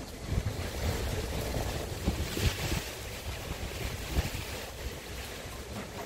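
Wood fire burning in a shichirin clay brazier, under a gusty low rumble of wind on the microphone, with a few brief low thumps.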